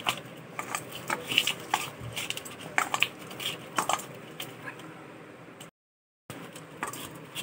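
Hands kneading oiled dough in a stainless steel bowl: soft squishing with irregular clinks and knocks against the steel, busiest in the first four seconds. The sound cuts out completely for about half a second near the end.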